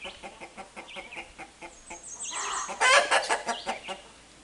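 Chickens clucking in short repeated notes, with a brief burst of loud squawking about three seconds in.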